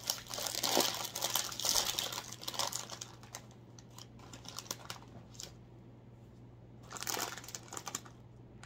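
A foil Cheetos snack bag being pulled open and crinkled by hand: dense crackling for about the first three seconds, then scattered short rustles, and another burst of crinkling about seven seconds in as a puff is taken out.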